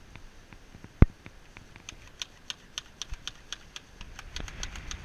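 Plastic squirt gun clicking as it is handled. There is one sharp knock about a second in, then a run of quick light clicks, about three to four a second, coming closer together near the end.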